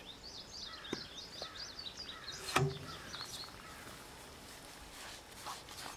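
Faint bird chirping in the background: a quick run of short high chirps through the first half. A few small handling clicks come with it, the loudest a sharp click about two and a half seconds in.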